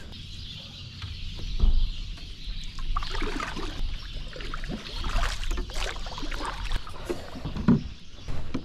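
Irregular knocks and water sounds from a fishing kayak as it is handled on the water, over a low rumble.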